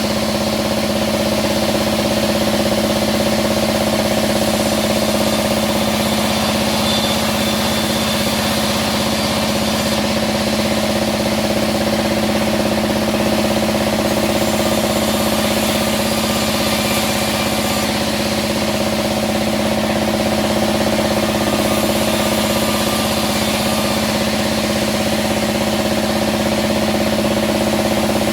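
Band sawmill running steadily: a constant machine drone at an unchanging pitch, with no pauses.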